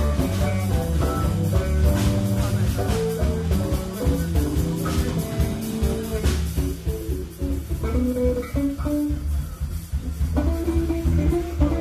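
Live band music: an electric guitar improvising a lead melody over bass guitar and drums. The drum and cymbal hits stop a little past halfway, leaving the guitar lead and bass.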